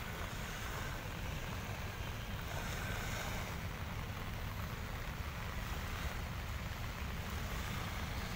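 Steady wind rumbling on the microphone over the soft wash of small waves lapping a sandy shore.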